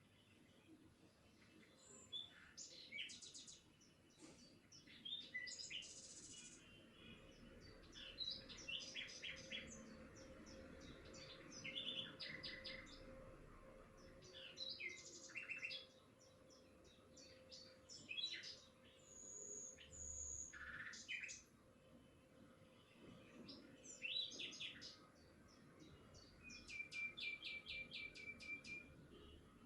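Faint birdsong: several birds chirping and trilling in short phrases, with a fast trill of evenly repeated notes near the end, over a faint steady hum.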